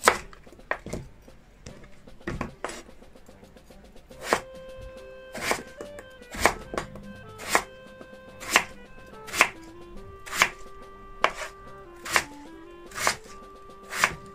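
Kitchen knife slicing through a raw peeled potato and knocking on a wooden cutting board: a few scattered cuts, then a steady run of sharp chops about one a second.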